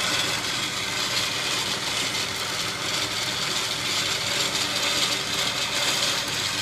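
Electric Champion winch running steadily, its motor and gear train reeling steel cable onto the drum under tension: a first spool-on to preload the line on a new winch. The vehicle's engine idles underneath.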